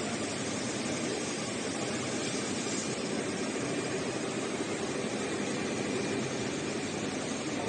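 Roll-to-roll heating-wire sewing machine running steadily: a continuous, even mechanical noise without pauses or changes.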